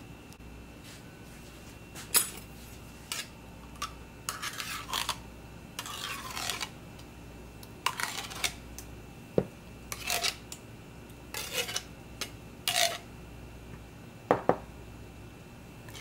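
Spoon scraping and clinking against a mixing bowl in irregular short strokes, with a few sharper knocks about two seconds in, near the middle and near the end.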